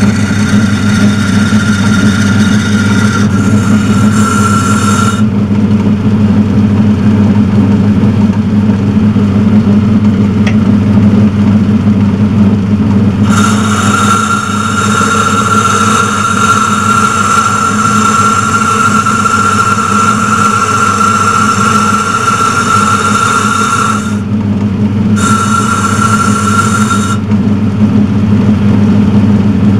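Turnell & Odell metal lathe running steadily with a low hum while boring out the bore of a change gear. A high whine from the boring cut comes and goes: it is there at the start, stops about five seconds in, returns for about ten seconds midway, and sounds once more briefly near the end.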